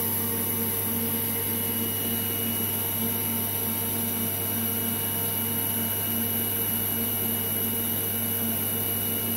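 Brother HS300 wire EDM cutting a groove: a steady hiss of the spark gap and dielectric flushing over a constant machine hum.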